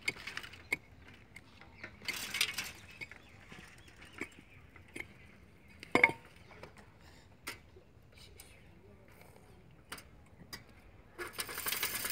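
Steel pickaxe striking hard, stony ground in irregular blows, each a sharp clink. The loudest, about six seconds in, rings briefly. Short spells of scraping through loose earth and gravel come between the blows.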